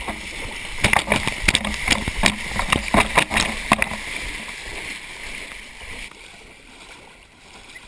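A yellow Labrador retriever splashing and paddling through shallow floodwater: a run of quick, irregular splashes for about three seconds, after which it quiets down to a soft steady wash.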